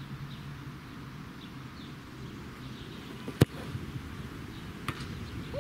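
A football struck hard from a free kick: one sharp, loud thud of the boot on the ball about three and a half seconds in. A fainter sharp knock follows about a second and a half later.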